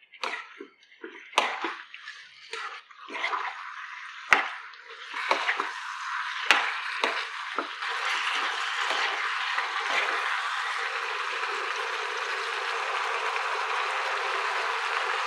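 Raw chicken pieces sizzling in oil in a kadai while a wooden spatula stirs them, with short scrapes and a few sharp knocks of the spatula against the pan. From about eight seconds in, the sizzle settles into a steady hiss as the chicken sautés over medium heat.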